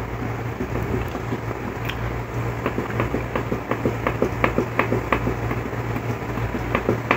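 Steady low hum of a room appliance, with a run of light, irregular clicks through the middle.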